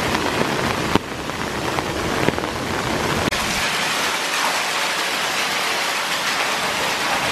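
Heavy rain pouring onto wet pavement, heard from under an umbrella: a dense, steady hiss that changes character abruptly about a second in and again after about three seconds.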